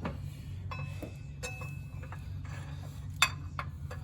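A steady low mechanical hum with light metallic clinks and clicks scattered over it; the sharpest clink comes a bit past three seconds in.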